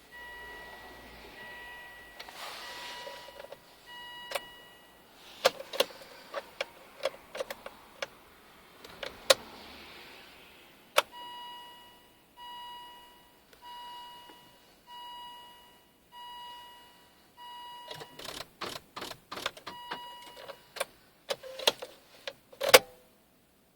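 Volvo V70 that won't start, clicking and beeping. A dashboard warning chime beeps over and over, about once every second and a bit, while sharp relay clicks come singly at first and then in a rapid chattering burst near the end.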